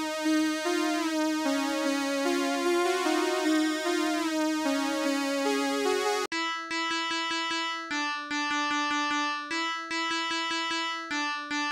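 Synthesizer keyboard melody in an electric-piano tone. About six seconds in it cuts abruptly to a second, sparser keyboard loop over a fast, even clicking beat.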